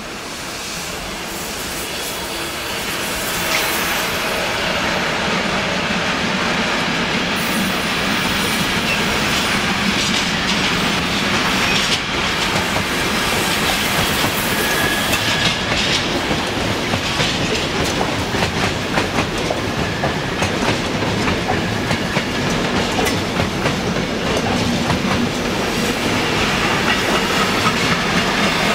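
A container freight train hauled by an electric locomotive rolls past close by, its wheels clattering over rail joints, with a brief wheel squeal about halfway. A red S-Bahn electric multiple unit also passes on the nearer track in the middle. The noise builds over the first few seconds, then stays steady.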